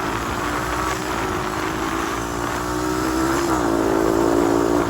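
Honda TRX250X ATV's single-cylinder engine running at a steady low speed, its pitch dipping slightly a little past three seconds in. Wind noise on the microphone.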